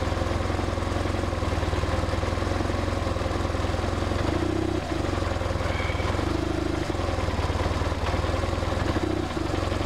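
BMW R1150RT's boxer twin idling steadily, with its two throttle bodies far out of balance.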